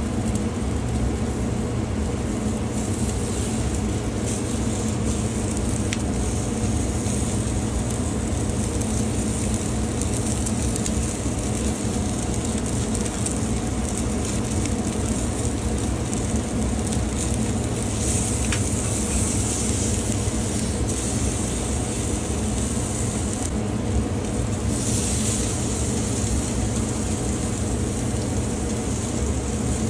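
A NY strip steak sizzling steadily on the grate of a charcoal grill over live coals, with a constant low rumble underneath.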